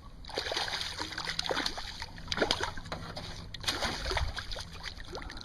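Water splashing and sloshing, with irregular knocks and clicks, as a hooked bass is brought to the boat.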